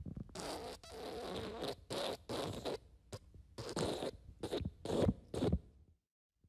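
Fart sound effect: a string of raspy farts, the later ones shorter and more spaced out, stopping about six seconds in.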